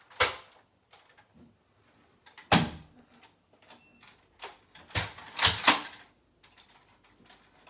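A handful of sharp plastic clacks from a Nerf blaster being worked and primed, the last three close together about five seconds in.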